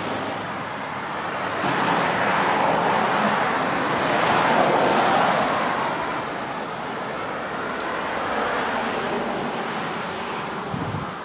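Road traffic going by: the tyre and engine noise of passing cars swells and fades, with the loudest passes about two and four seconds in.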